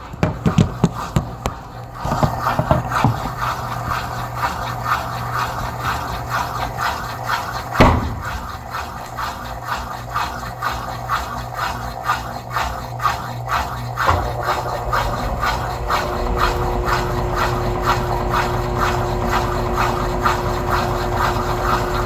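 Electrolux Turbo Economia LTE06 6 kg washing machine running, with a fast rhythmic clatter over a steady low hum. A single loud knock comes a bit over a third of the way in, and a steady higher hum with a deeper rumble joins about two-thirds of the way through.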